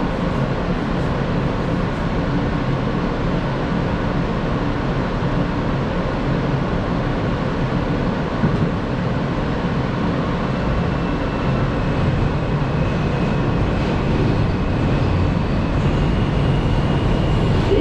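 Steady noise inside a New York City Subway E train car. A faint high whine comes in about ten seconds in and steps up in pitch near the end.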